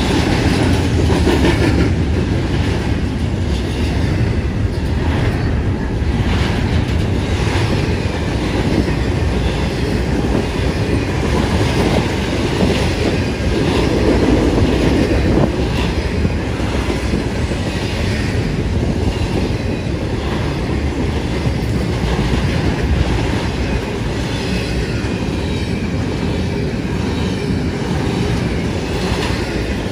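CSX intermodal freight train's container well cars and trailer flatcars rolling steadily past close by: a continuous rumble with the wheels clicking over the rail joints.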